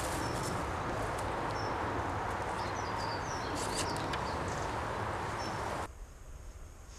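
Steady outdoor rustling noise with small birds chirping high over it. The noise drops abruptly about six seconds in, leaving a much quieter background.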